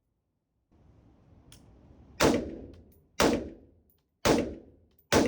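Four rifle shots fired about a second apart, each followed by a short echo that dies away, with a faint rustle before the first.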